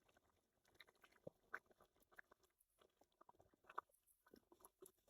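Near silence with faint, scattered small clicks and taps, about a dozen, a little stronger about a second and a half in and again near four seconds.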